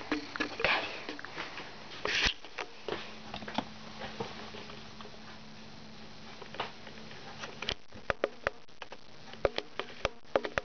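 Handling noise from a handheld camera being moved up close to a small plastic toy cage: scattered clicks, taps and rustles over a faint steady hum. There is a short rustle about two seconds in, and a run of sharp clicks near the end.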